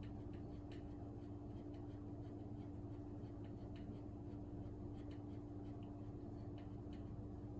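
Faint room tone: a steady low hum with a constant mid-low tone, and scattered light ticks a few times a second.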